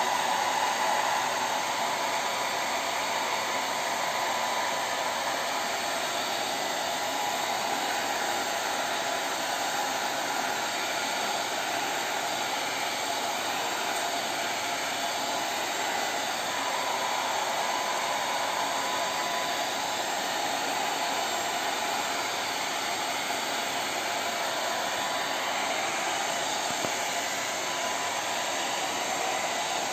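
Handheld hot air dryer running steadily, blowing into a glass Ostwald viscometer to dry out the acetone rinse.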